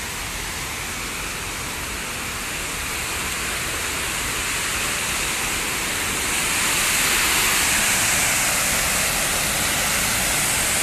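Artificial waterfall pouring over rockwork into a pool: a steady rush of water that grows louder about six seconds in.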